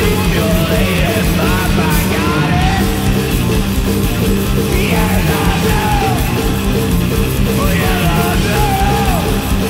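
Loud live heavy rock from a guitar-and-drums duo: distorted electric guitar riffing over a hard-hit drum kit, with yelled vocals on top.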